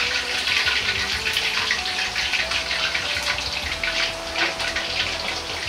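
Hot deep-frying oil in a wok sizzling with a dense, fine crackle as fried chicken pieces are lifted out on a perforated ladle after their first fry.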